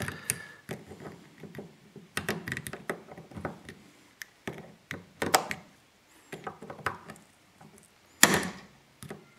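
Snap-ring pliers and a steel circlip clicking and tapping against a dirt-bike transmission output shaft and its gears while the clip is fitted, in irregular light clicks with a louder knock a little over eight seconds in.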